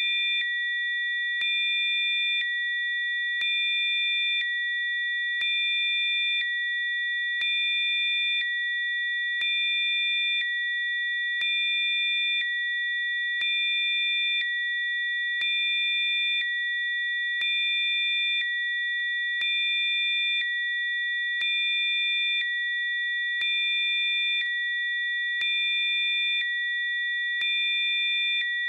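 Steady electronic tones: a few pure, high-pitched tones sounding together without a break, with a slight rise in loudness lasting about a second every two seconds.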